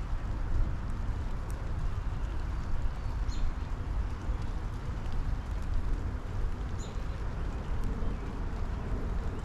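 Steady spring rain shower falling on a lilac bush and backyard, with a bird giving a short high chirp twice.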